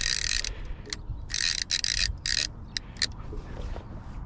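Fishing reel's clicker ratcheting as a sturgeon pulls line off on a bite: a steady run of clicking that breaks off about half a second in, then short, irregular spurts.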